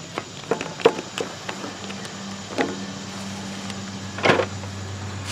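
Scattered clicks and knocks of hands and tools handling fasteners and plastic and metal parts while a snowblower engine is being taken apart. A steady low hum comes in about two seconds in.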